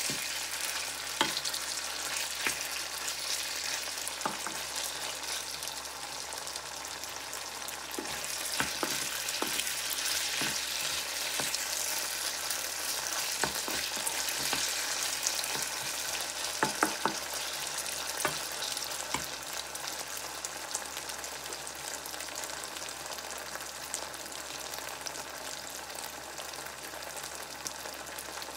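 Beef, onion and garlic sizzling in a hot wok, with a wooden spatula scraping and knocking against the pan as the food is stirred. The clicks of stirring stop about two-thirds of the way through while the steady sizzle goes on.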